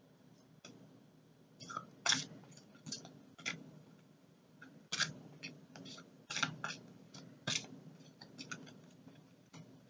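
A deck of cards being shuffled slowly by hand, overhand. Cards slip off the pack in short, irregular soft snaps and rustles, about a dozen in all, the loudest about two, five, six and a half and seven and a half seconds in.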